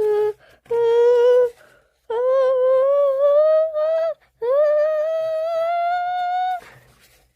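A high voice drawing out held vocal tones, each longer and higher than the last, as the build-up to a pretend sneeze. A short breathy intake near the end.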